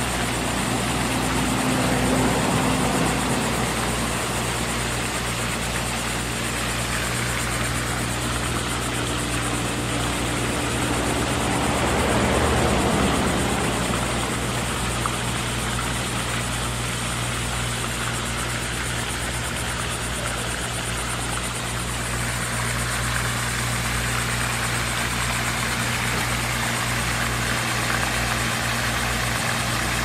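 A steady low motor hum under a hiss of splashing water from an aerating pond fountain. The whole sound swells briefly twice, about two seconds in and again about twelve seconds in. The splashing hiss grows a little stronger in the last third.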